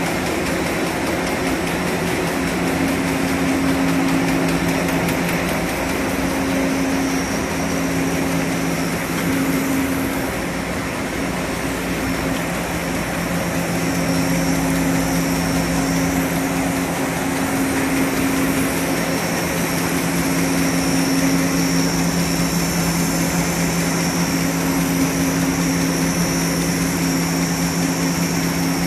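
Wrapping-paper slitting and sheeting machine running at high speed: a steady mechanical hum with two low steady tones over a dense rushing noise, and a faint high whine.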